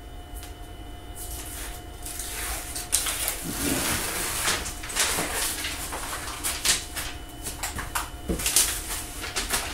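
Tape and its yellow backing being peeled off a board, with irregular rustling and crackling that gets louder about three seconds in.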